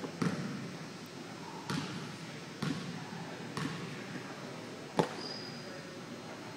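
Basketball bounced about four times, roughly a second apart, on a hardwood gym floor, followed about five seconds in by a sharper, louder knock.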